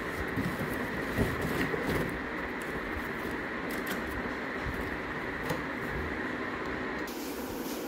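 Steady machine-like whirring noise, with a few light knocks and scrapes as a cardboard box is handled early on; the whir's higher note cuts off about seven seconds in.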